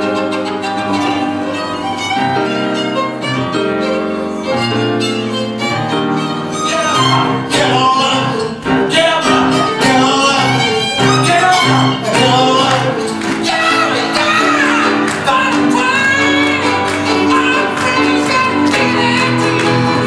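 Violin and grand piano playing a duet. From about seven seconds in the violin part turns busier, with wavering, sliding high notes over sustained piano chords.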